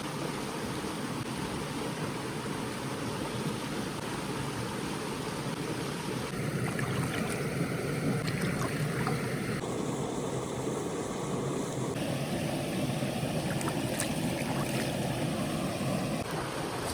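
Meatballs sizzling on a hot stone over a campfire: a steady frying hiss, with a few sharp pops in the latter part.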